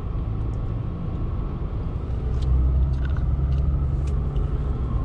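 Steady engine and road rumble inside a moving pickup truck's cab, getting somewhat louder about halfway through, with a few faint clicks.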